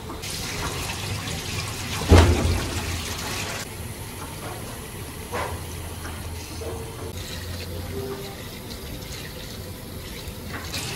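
Warm water running from a tap as rice is rinsed, louder for the first few seconds, with a heavy thump about two seconds in.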